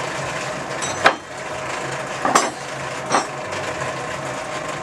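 Blacksmith's metal tools clanking at a coal forge: three sharp clanks about a second apart, the middle one a quick double hit, over a steady mechanical hum.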